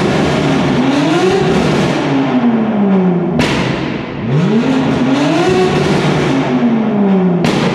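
Twin-turbo S55 straight-six of a 1000 hp BMW M2 Competition revved twice while stationary, heard from inside the cabin: each rev climbs quickly, then falls away slowly and ends in a sharp crack, about halfway through and again near the end.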